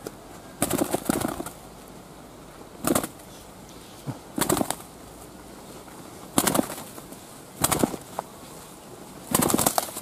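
A spotted dove flapping its wings in short bursts, six or so, spaced roughly every one to one and a half seconds.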